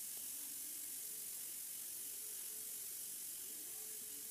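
Battered potato pinwheels shallow-frying in hot oil: a soft, steady sizzle.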